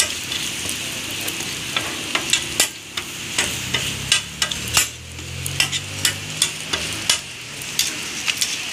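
Parathas sizzling in oil on a large flat griddle, with sharp, irregular clicks of metal tongs striking the griddle as the breads are turned and flipped.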